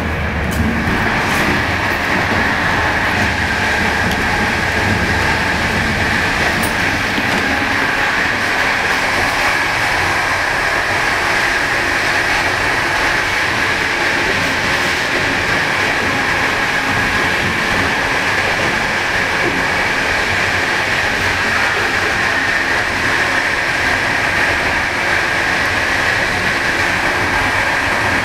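Steady running noise of a moving passenger train, heard inside a 156A first-class coach: a constant rush of wheels on rail and air. It is lower and heavier in the first second by the door between cars, then settles into an even hiss along the side corridor.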